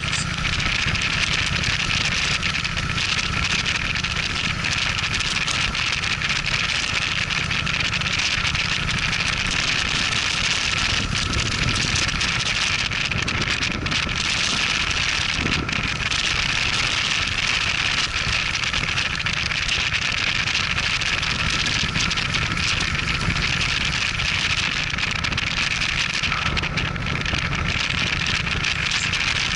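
Cruiser motorcycle riding at a steady speed: a constant rush of wind over the microphone with the engine running underneath.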